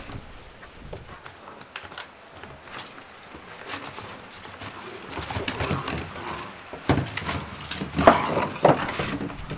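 Gordon Setter puppies play-fighting over a plastic flower pot. Small puppy noises and knocks of the pot on the wooden deck grow busier in the second half, with a few sharp louder sounds near the end.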